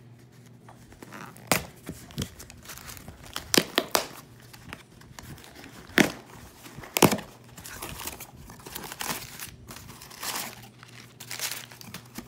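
A cardboard shipping box being opened: a knife slitting the packing tape and the flaps being torn and pulled apart, with several sharp rips in the first seven seconds. After that comes a steadier rustling of cardboard and crinkling of packing material.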